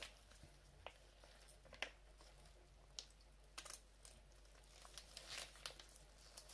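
Faint, scattered crinkling and crackling of a crème fraîche pouch being handled and squeezed out into a glass bowl.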